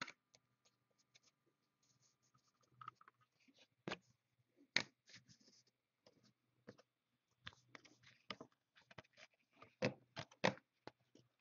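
Trading cards being handled and sorted: scattered soft clicks, taps and scrapes of cards sliding and knocking against each other, with the loudest taps about five seconds in and near the end.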